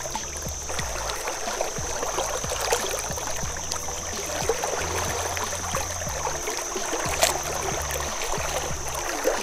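Shallow river current flowing and rippling over rocks, a steady rushing haze, with a steady high-pitched tone over it and a single sharp click about seven seconds in.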